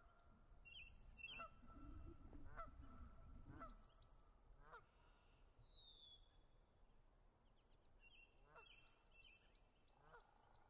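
Faint bird calls: a short call repeated about once a second, with higher chirps and one falling whistle among them. A low rumble rises from about two to four seconds in.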